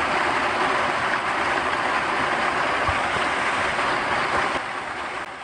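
Heavy rain: water pouring off a roof edge and splashing down a stone wall in a steady rushing patter, fading near the end.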